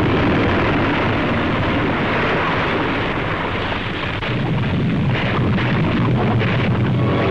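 Volcanic eruption rumbling and blasting, a dense noisy roar with a deeper rumble that swells about four seconds in and a few sharp blasts just after.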